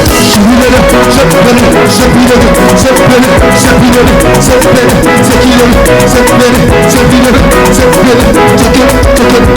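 Live praise band playing a fast, upbeat groove: drums and shakers over held keyboard chords and a heavy bass line.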